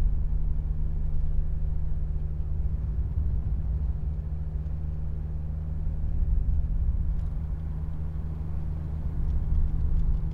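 Truck engine and road noise while driving: a steady low drone with a constant hum.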